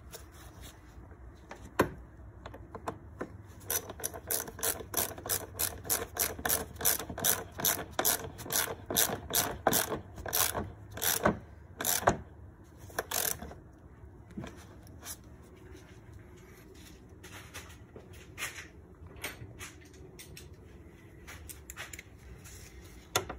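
Hand ratchet clicking in quick runs, several clicks a second, as it turns a socket on the hose clamp of the engine's air intake cuff. The clicking stops about halfway through, then a few scattered clicks follow.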